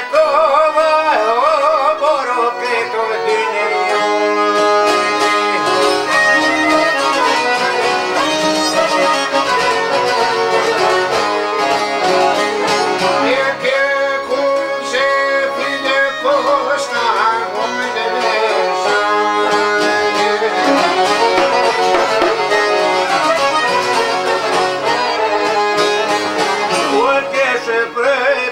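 Albanian folk music, an instrumental passage with string instruments carrying a wavering melody.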